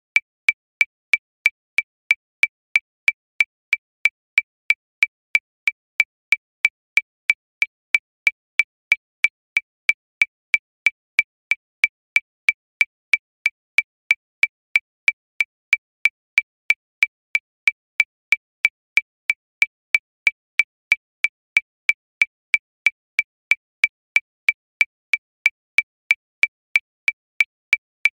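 Metronome click track at 185 beats per minute: short, high, identical clicks about three times a second, steady throughout with no accented beat.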